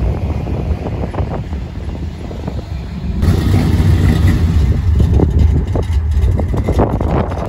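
Car engines at low speed: a black Mercedes-AMG SL roadster rolling past with a low engine rumble. About three seconds in, after a cut, comes a louder, deeper engine rumble with an uneven pulse.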